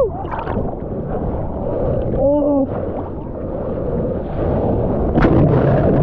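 Ocean water washing and sloshing around a water-level camera in the shorebreak, with a short rising-and-falling tone about two seconds in. About five seconds in, a wave breaks over the camera with a loud splash, and the sound turns muffled as it goes underwater.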